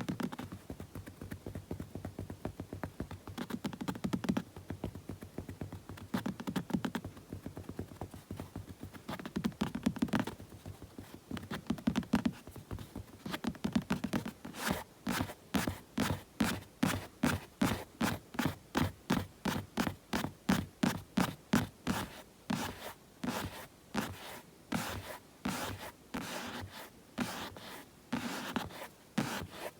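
Bare hands and palms rubbing and rustling close to the microphone. About halfway through, the rubbing settles into an even rhythm of short strokes, about two or three a second.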